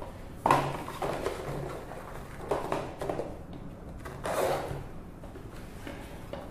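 A boxed mercury sphygmomanometer case set down and handled on a stainless-steel bench: a sharp knock about half a second in, then softer bumps and scrapes at about two and a half and four and a half seconds.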